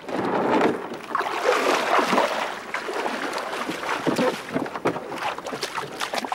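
Water splashing and lapping against a wooden canoe on a river, in uneven surges.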